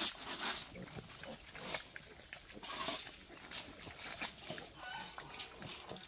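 Wild boars and piglets grunting as they feed on banana leaves, with many short rustling and crunching sounds.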